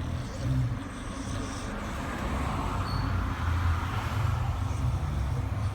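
Snoring: a low, uneven rumble that grows somewhat louder in the second half.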